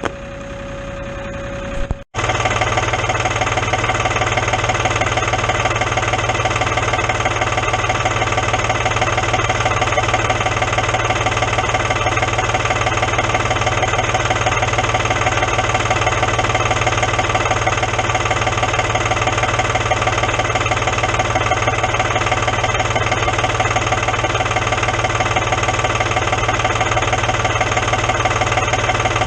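Vehicle engine idling steadily with an even, rapid pulse, briefly cut off about two seconds in.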